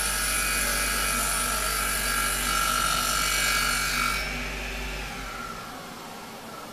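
Circular saw blade on a CNC router spinning with a steady high whine and hiss. About four seconds in the saw motor is switched off: the whine falls away as the blade spins down, and a low hum cuts out about a second later.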